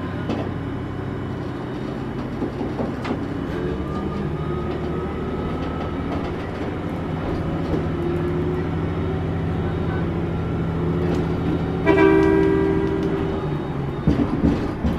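Diesel railcar running along the line: a steady engine drone with a faint whine that rises in pitch, a few sharp wheel clicks over rail joints, and a short horn blast about twelve seconds in.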